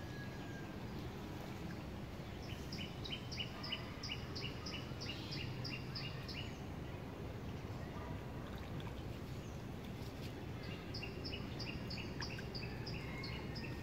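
A bird singing two runs of quick repeated two-pitched notes, about three a second, each run lasting a few seconds, over steady low outdoor background noise.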